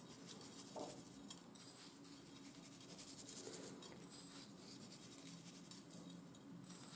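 Faint sound of dry breadcrumbs being pinched from a plate and sprinkled by hand over the bottom of a greased metal baking pan, with a few soft ticks.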